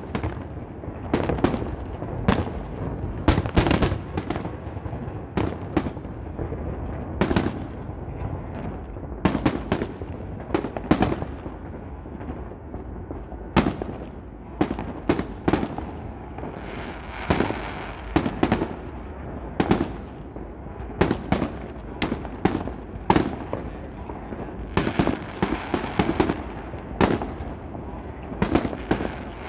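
Fireworks display: aerial shells bursting in a quick, irregular series of bangs over a continuous low rumble.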